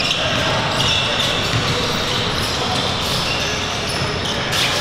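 Basketballs bouncing on a hardwood gym floor, many at once, mixed with short high sneaker squeaks and voices in the background.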